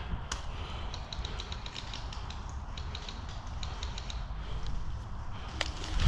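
A quick string of light, sharp clicks, about six a second for about three seconds, typical of airsoft guns firing. A few louder single clicks come near the start and near the end, over a steady low rumble.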